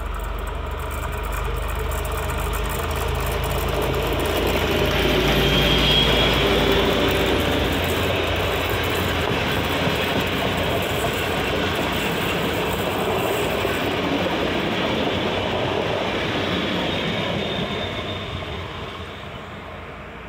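SU46 diesel locomotive running as it approaches and passes, its low engine drone dying away about six seconds in. The coaches then roll by with steady wheel-on-rail noise, fading near the end.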